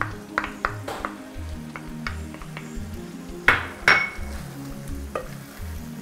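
A small ceramic bowl and a utensil clinking against a pan on a gas stove as a cornflour slurry is poured in and stirred, a scatter of sharp clinks with the loudest pair about three and a half seconds in, the second one ringing briefly.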